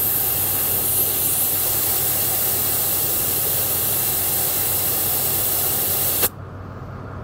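Air hissing steadily out of a tire through the bleeder valve of a Viair tire inflator's dial-gauge chuck, letting the pressure down from just above 40 psi. The hiss cuts off suddenly about six seconds in.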